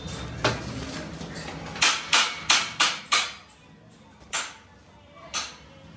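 Sharp metallic knocks and clicks as a homemade steel bearing puller and motor armature are handled and set down on a wooden workbench board. There are about eight, a quick run of five about two to three seconds in, then two more spaced out.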